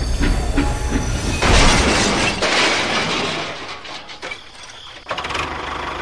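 Toy steam locomotive running on plastic track with evenly spaced clicking, about three a second. About a second and a half in, a loud hiss starts and fades away over the next few seconds.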